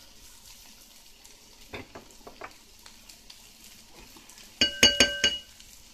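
Sliced bell peppers and onions sizzling faintly in a frying pan as they are stirred, with a few light taps. About three-quarters of the way through, a quick run of sharp metallic clinks that ring: the stirring utensil knocking against the pan.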